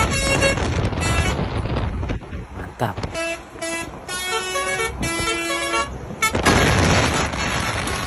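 Lorry's telolet basuri musical air horn sounding a tune of short notes that step up and down in pitch, over diesel engine and road rumble. About six seconds in, a loud rushing noise takes over.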